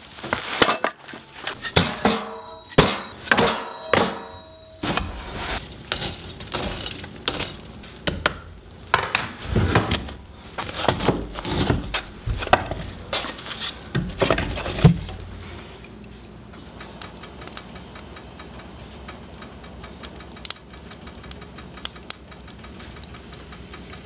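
Split firewood logs knocking and clunking together as they are handled, with metal clanks from the wood stove's door, as a string of sharp knocks over the first fifteen seconds. After that comes a faint, steady crackle from the stove fire.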